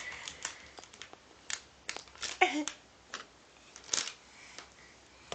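Scattered small clicks and taps, with one short falling voice sound about halfway through.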